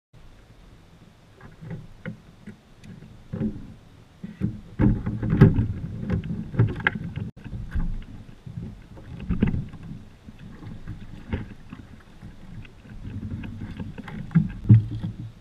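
Irregular thumps, knocks and bumps on a Hobie Lynx fishing kayak's plastic hull and rigging as someone climbs aboard and shoves off in shallow water. The knocks come thickest in the middle and there is one sharp bump near the end.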